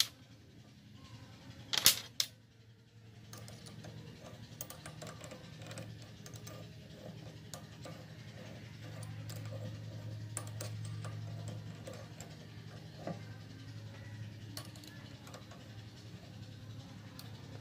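Small metallic clicks and clinks of a hex key working the bolts of a mini lathe's four-way tool post, with a sharper clatter about two seconds in. A steady low hum runs underneath from about three seconds on.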